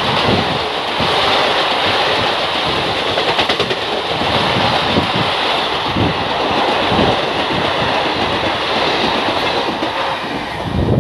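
Express train's passenger coaches passing at high speed close by: a loud, steady rushing rattle of wheels on rails, with irregular clattering thumps of wheels over rail joints. The level falls off near the end as the train moves away.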